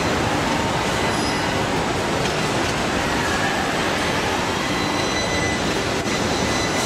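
Steady industrial noise of a car body-shop line of welding robots: a dense rush and rumble, with faint thin high whines that come and go.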